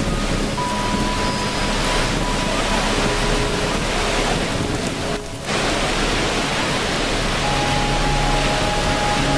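Steady rushing water noise with soft sustained notes of meditation music laid over it. The noise dips briefly about five seconds in.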